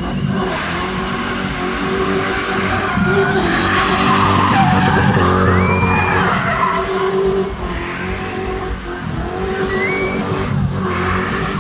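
Box BMW (E30 3 Series) spinning: the engine runs hard while the rear tyres screech and squeal. The screech wavers up and down, strongest for a few seconds in the middle and again near the end.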